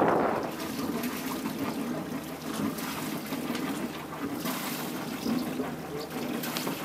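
Water trickling and lapping quietly around the hull of a moored yacht in a lock chamber.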